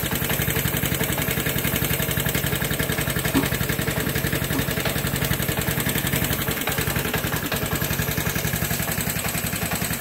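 Vespa scooter's single-cylinder engine idling steadily with an even, rapid low pulse. A single light tap sounds about a third of the way through.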